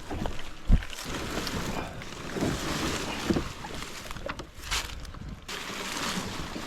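Kayaks being handled at the water's edge: hollow knocks and scraping of plastic hulls, with a heavy thump just under a second in.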